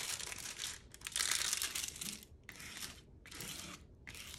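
Clear plastic cover film on a diamond painting canvas crinkling as a plastic scraper tool is pushed across it in several short strokes, smoothing the film flat. The strokes come as separate bursts of crackle with brief gaps, the loudest about a second in.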